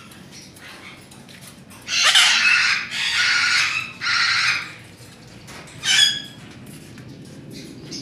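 Parrots screeching in a cage: three loud, harsh squawks in quick succession about two seconds in, then a shorter, sharper call around six seconds in.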